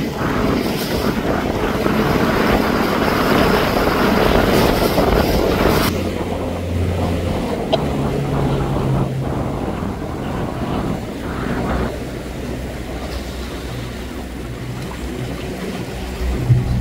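Wind rushing over the microphone, mixed with water noise from a moving boat. The rush drops sharply about six seconds in, leaving quieter wind and water with a faint low hum.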